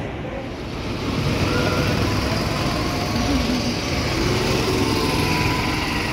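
An amusement park ride running: a steady rumbling noise that grows louder about a second in.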